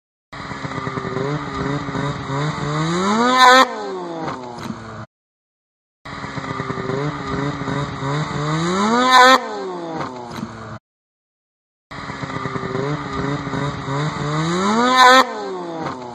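Snowmobile engine accelerating hard, its pitch climbing steadily, then a sudden loud crash as the sled wipes out and the engine note falls away. The same few-second run plays three times, with short silent gaps between.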